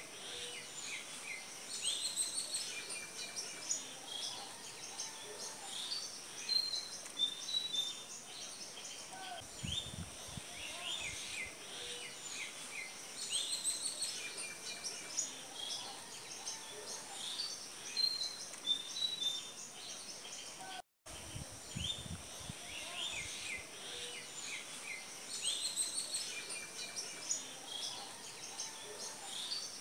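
Small birds chirping and twittering, many short, high chirps overlapping throughout over a faint outdoor hiss. A few low rumbles come in around ten seconds in and again just after twenty seconds, where the sound briefly cuts out.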